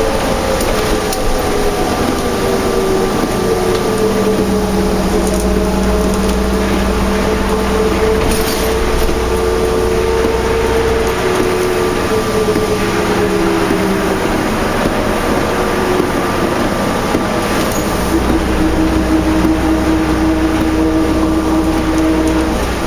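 Interior of a New Flyer D40LF diesel transit bus under way: the Cummins ISL engine and ZF automatic transmission running with a steady rumble and a whine that slowly rises and falls in pitch as the bus changes speed.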